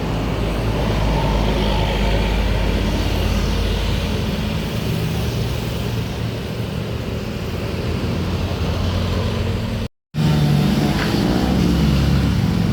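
Bus engine running with steady road and traffic noise. The sound drops out for a moment about ten seconds in.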